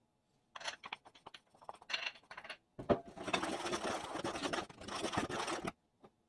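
Flour poured from a bowl into a nonstick saucepan of sugar, with short rustles and scrapes. About three seconds in comes a knock, then a wooden spoon scrapes and stirs the dry flour and sugar around the pan for nearly three seconds before stopping suddenly.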